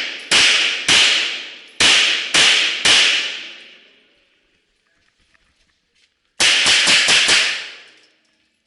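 Pistol shots during a timed course of fire: five spaced shots in the first three seconds, then after a pause a fast string of about six shots near the end, each followed by a long echo.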